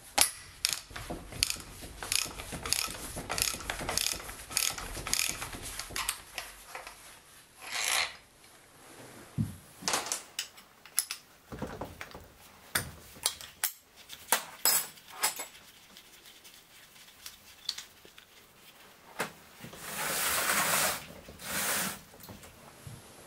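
Ratchet wrench clicking as it loosens the cylinder head bolts of a Yamaha XT600 engine: a quick, even run of clicks at first, then scattered single clicks and clinks of the tool, and a longer rasping stretch of clicking near the end.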